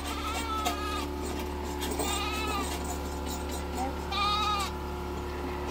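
Sheep or goats bleating: three high, quavering calls about two seconds apart, the last the loudest.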